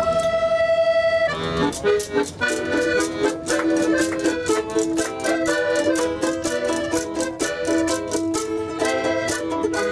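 An accordion holds a chord. From about a second and a half in, it plays a lively folk tune together with a quickly plucked small string instrument.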